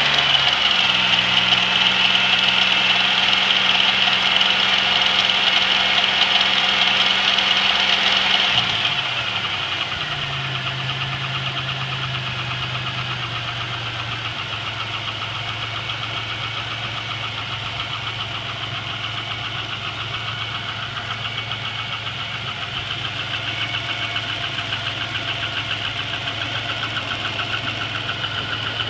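GM 3800 V6 engine running fast, then dropping to a lower idle about nine seconds in, with a rapid, even ticking knock running through it. The owner suspects a collapsed lifter.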